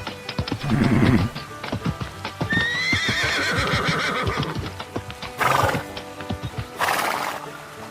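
Cartoon sound effects of a horse whinnying once and hooves clip-clopping, over background music, with two short noisy bursts near the end.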